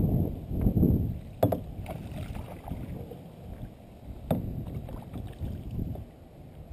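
Rumbling water and hull noise in a plastic kayak, loud for the first second and then quieter, with a sharp knock about a second and a half in and another a few seconds later.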